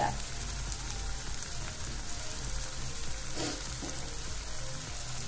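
Tomato masala frying in oil in a wok on a gas flame: a steady soft sizzle with faint scattered crackles as the chopped tomatoes cook down in the oil.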